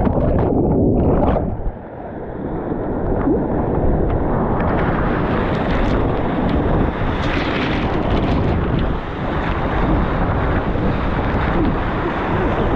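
Loud rushing whitewater of river rapids with wind buffeting the microphone. About a second and a half in, the sound turns dull and muffled, then gradually brightens again.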